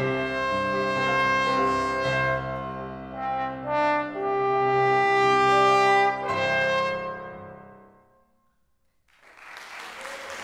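Trombone with piano playing the closing phrase of a piece, held brass notes over piano chords. It ends on a final chord that dies away about eight seconds in. A short rush of noise follows near the end.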